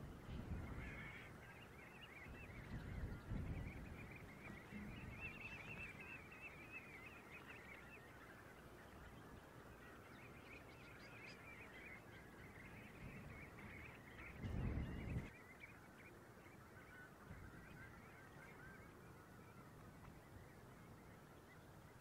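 Faint, dense chorus of overlapping calls from a large flock of coastal birds on the mudflats, with brief low rumbles near the start, around three seconds in and again near fifteen seconds.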